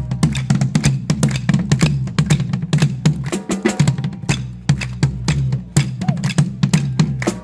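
Marching drums played live by a small drum corps: fast, rhythmic stick strikes throughout, briefly thinning out about three and a half seconds in.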